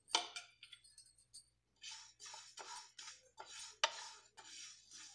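Wooden spatula stirring fennel seeds as they dry-roast in a nonstick frying pan: a clink at the start, then a run of short, dry scraping and rustling strokes, about three a second, from about two seconds in.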